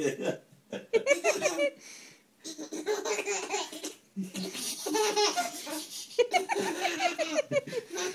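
A baby belly-laughing in several bursts with short pauses, tickled by a cat licking its toes.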